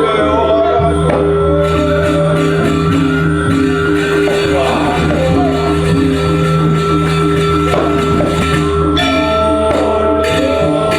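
Music with a steady beat and sustained held tones.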